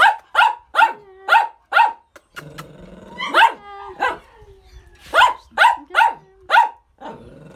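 Small dog barking in quick runs of sharp, high yaps, about two or three a second, with low growling in the pauses between the runs.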